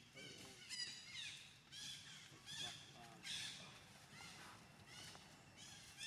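Monkeys calling: a run of short, high-pitched calls, about two a second, some gliding in pitch.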